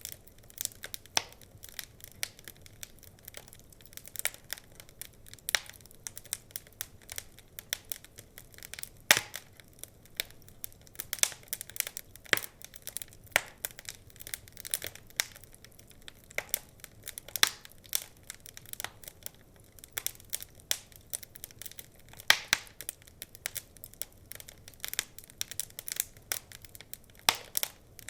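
Wood fire crackling: irregular sharp pops and snaps, several a second, with a few louder cracks, over a faint hiss.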